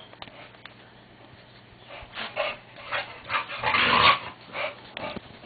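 A bulldog's short, breathy huffs and growly noises while play-wrestling, coming two or three a second after a quiet start, with the longest and loudest about four seconds in.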